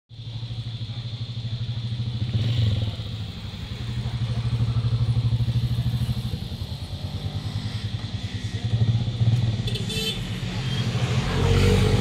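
Motorcycle engine running out on a racing circuit, its sound swelling and fading several times as the bike works around the track, loudest near the end.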